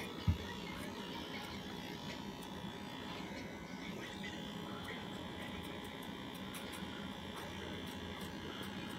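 Electric hair clippers buzzing steadily as they cut along the boy's temple and sideburn. A brief low thump about a third of a second in.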